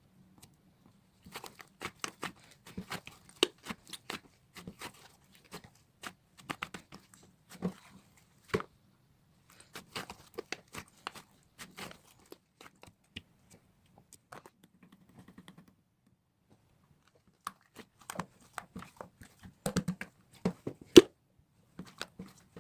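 Irregular crinkling, rustling and clicking of something being handled, in uneven clusters with a pause of about two seconds past the middle.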